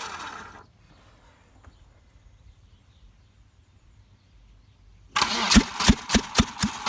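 Volvo B230F four-cylinder engine being cranked by the starter. The cranking stops about half a second in, and after a pause of some four seconds it starts again with a rapid string of loud coughs: only the second cylinder is firing and the engine will not catch.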